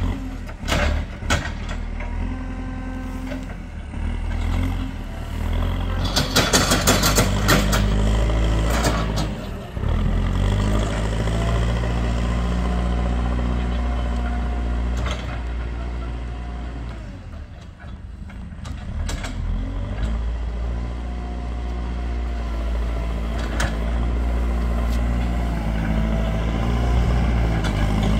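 JCB 4CX backhoe loader's diesel engine working under load, its pitch rising and falling with the throttle. A stretch of loud clatter comes about seven seconds in, and the engine eases off briefly about two-thirds of the way through before picking up again.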